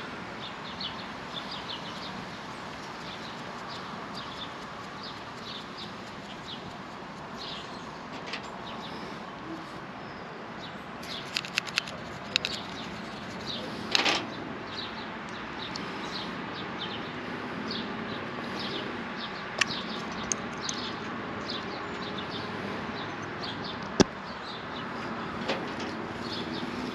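Small birds chirping over a steady hiss, with a few sharp clicks and knocks about halfway through and again later.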